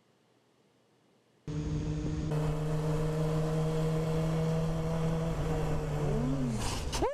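Near silence for about the first second and a half, then a motorcycle engine running at steady revs with wind rush, heard from a rider's helmet camera. Near the end the engine's pitch dips, then rises sharply in a quick rev.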